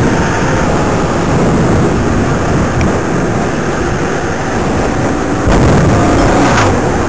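Wind rushing over the microphone of a mountain bike coasting fast downhill on asphalt, mixed with tyre rumble; it gets louder for about a second from around five and a half seconds in.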